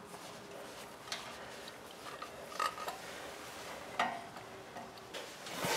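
Faint scattered clicks and taps, about four in all, as a compression gauge's hose is handled and fitted into the spark plug hole of a small generator engine.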